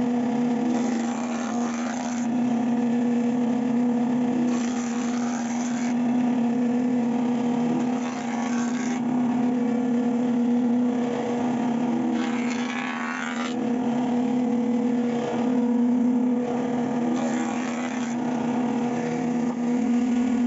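Electric jointer-planer running with a steady motor hum. About five times, a louder cutting noise lasting a second or two rises over the hum as a wooden board is passed over the spinning cutterhead.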